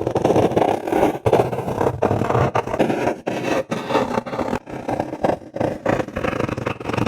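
Acrylic marker tip rubbing and scratching across paper in repeated coloring strokes, close to the microphone. Each stroke is broken by a short pause, roughly one to two strokes a second.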